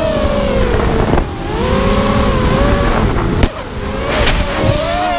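The brushless motors and 5-inch propellers of a 4S 250-size FPV racing quadcopter whine in flight, the pitch gliding up and down with throttle, over a rush of wind. The whine dips sharply about a second in. A short sharp click comes about three and a half seconds in, with a brief drop in level.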